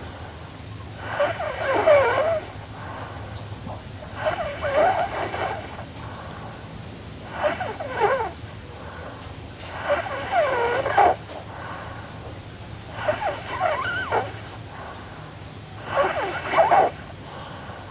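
A sleeping girl snoring in a steady rhythm: six snores, one about every three seconds, each with a wavering pitch.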